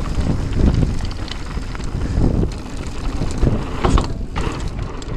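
Mountain bike rolling fast down a dirt and gravel trail: wind rushing over the action-camera microphone, tyres rumbling on the ground, and scattered clicks and rattles from the bike.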